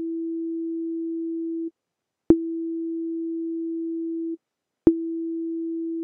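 Ableton Operator synthesizer sounding a plain sine-tone note, played three times on a keyboard and held about two seconds each. Each note starts with a short loud click that drops at once to a steady, quieter sustained tone, then cuts off quickly on release: an envelope with a 149 ms decay to a sustain level 23 dB down and a 50 ms release. The first held note stops near two seconds in, the next starts just after and stops past four seconds, and a third starts near five seconds.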